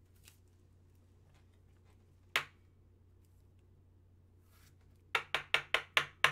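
Sharp clicks of a hard plastic card holder handled in gloved hands: a single click about two and a half seconds in, then a quick run of about seven clicks, some five a second, near the end.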